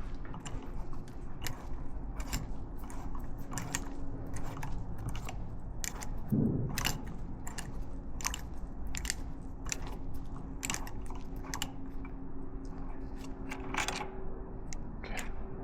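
Metric tap being turned by hand in a stripped aluminum motor-mount bolt hole, giving irregular crunchy clicks as it cuts and clears the threads.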